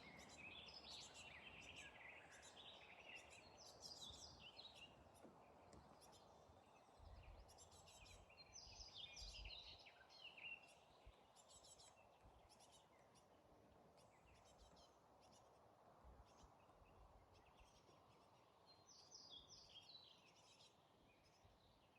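Faint songbird calls and song: short chirping phrases in three spells, at the start, around the middle and near the end, over a soft steady outdoor background.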